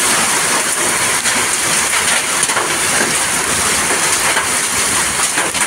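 Hailstorm: hailstones and rain pelting down in a steady, dense clatter of many small hits.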